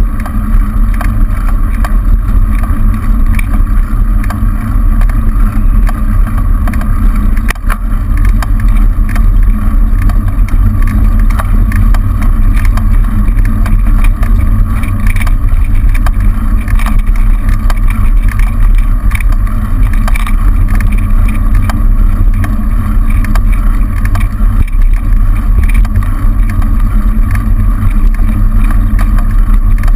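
Steady loud rumble of wind and road vibration on a bicycle-mounted camera while riding, with occasional small knocks from bumps in the road.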